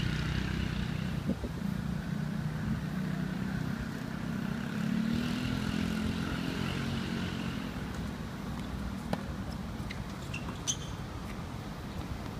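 Steady low rumble of nearby road traffic, with a vehicle engine swelling and passing around the middle. A few sharp knocks of a tennis ball struck by rackets, two of them in the second half.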